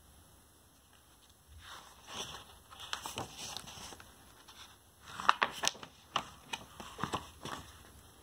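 Pages of a paperback picture book being turned by hand: paper rustling and crackling in two bouts, one starting about a second and a half in and another about five seconds in, the second with sharper clicks.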